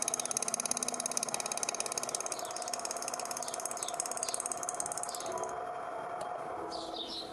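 Schaublin watchmaker's lathe running, a steady hum with a fast, even whirring pulse while a boring tool cuts recesses in a steel bridge on the faceplate. The whirring stops about five and a half seconds in, leaving a fainter hum.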